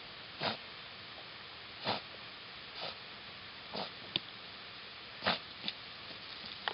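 A dog sniffing with its nose pushed into the ground and leaves: about five short, sharp sniffs roughly a second apart, with a few small clicks in between.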